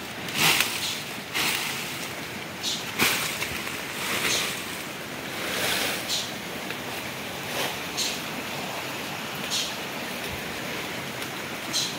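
Cut leafy fodder branches rustling in short bursts, about nine in all, as they are packed into a tumpline load, over a steady rushing noise.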